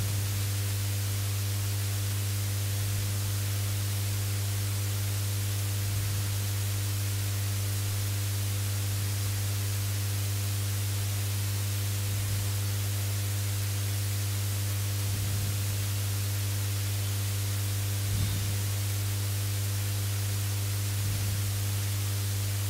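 Steady electrical mains hum with its overtones and a constant hiss from the headset microphone's recording chain, with a few faint soft bumps now and then.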